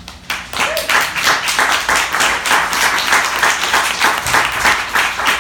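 Audience applauding: a few scattered claps at first, swelling into full, steady applause about a second in.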